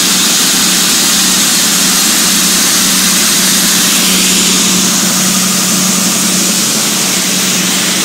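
Shelled corn pouring from a gravity wagon's chute into a grain auger's hopper, a steady hiss of grain over the even hum of the engine-driven auger running.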